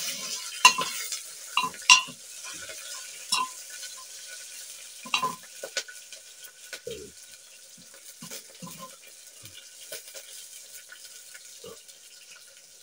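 Metal spoon stirring food frying in an open aluminium pressure cooker: the spoon clinks and scrapes against the pot over a sizzle. The clinks come often in the first six seconds, then thin out.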